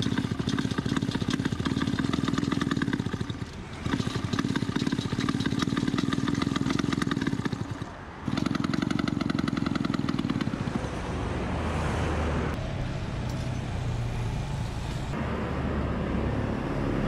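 Two-stroke Vespa engine running with a fast, rapid popping beat, dropping out briefly twice and picking up again. After about eleven seconds it settles into a lower, steadier running note.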